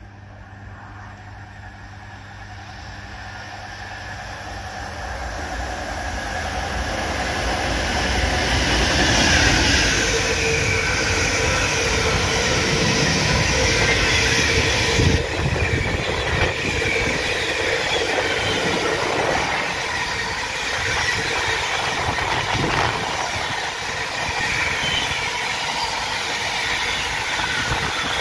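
A train approaching and passing on the main line, growing steadily louder over the first nine seconds or so, then staying loud with a continuous rush of wheels on rails and some high wheel squeal.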